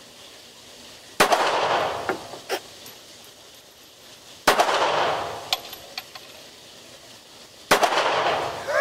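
Kel-Tec P32 .32 ACP pocket pistol fired three times, about three seconds apart. Each shot rings out and decays over about a second in an indoor range, with a few lighter clicks after the shots.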